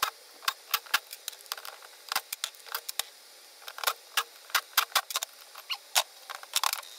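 Scattered light clicks and taps of hand tools and small metal engine parts being handled, at no steady rhythm, a little denser near the end.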